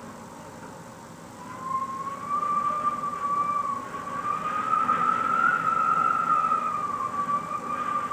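Wind whistling through a gap in a cottage window: after a second or so a single long whistle sets in, its pitch drifting slowly up and down, over a steady rush of wind.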